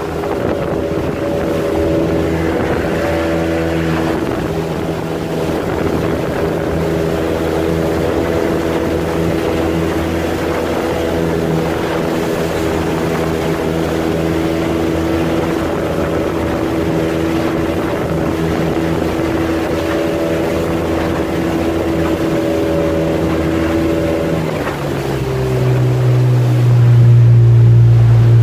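Motorboat engine running steadily under way, with wind and water noise. About 25 seconds in, its note shifts and it grows louder and deeper.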